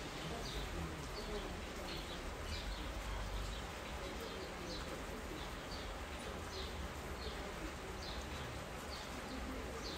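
Steady rain hiss, with a short high chirp repeating about three times every two seconds.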